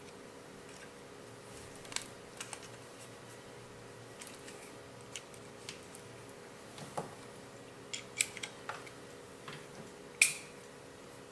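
Scattered light clicks and taps from airsoft rifle parts being handled while a PolarStar engine and its mounting pins are fitted, with one sharper click about ten seconds in, over a faint steady hum.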